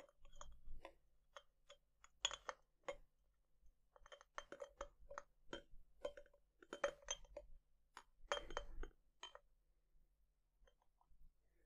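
Faint, irregular clinks and scrapes of a plastic UHU glue tube's nozzle against the inside of a glass jar as glue is smeared around it.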